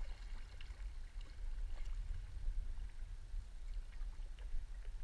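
Canoe paddle strokes on a slow river: light splashing and dripping from the paddle as scattered small ticks, over a steady low rumble.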